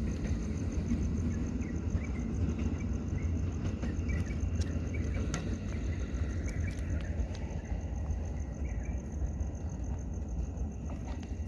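Steady low rumble of traffic around a railway junction, easing a little near the end, under a thin, high, rapidly pulsing tone and scattered small chirps.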